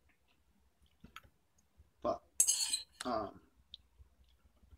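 A metal fork clinking and scraping against a dish as salad is picked up and eaten, with a few light clicks about a second in. About halfway through comes a loud breathy rush, followed by two brief murmured vocal sounds.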